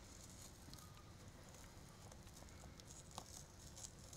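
Faint crackling and tearing of polyurethane foam backing as fingertips work it away from the vinyl mesh top of woven floor covering fabric, with small scattered ticks and one sharper click about three seconds in.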